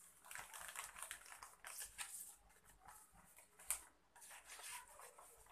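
Faint rustling and crinkling of paper packaging being handled, in irregular soft bursts.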